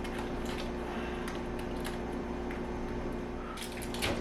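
Faint scattered clicks and rubbing of a portable clothes dryer's parts being handled and tightened by hand, over a steady low hum, with the clicks thickening near the end.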